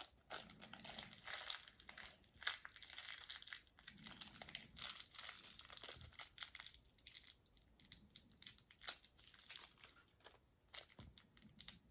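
Plastic toy packaging crinkling and tearing as a small wrapper is opened by hand, with irregular crackles and rustles throughout.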